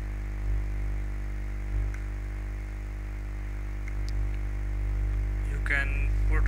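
Steady low electrical hum with faint hiss from the recording setup, with two soft low thumps in the first two seconds.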